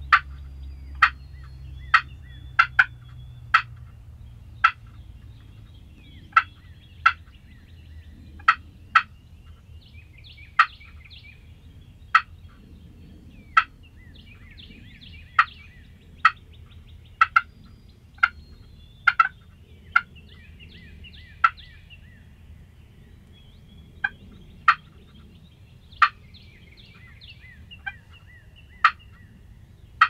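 Wild turkeys calling in short, sharp clucks, spaced irregularly at about one a second, with fainter runs of rapid notes between them.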